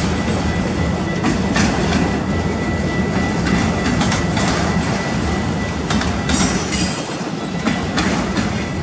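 Autorack freight cars rolling past: a steady rumble of steel wheels on rail, with irregular clacks as the trucks cross rail joints and a thin, steady high wheel squeal.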